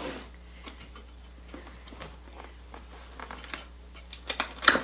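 A product box and its packaging being handled and opened by hand: scattered light clicks and rustles, with a quick run of louder clicks and knocks near the end.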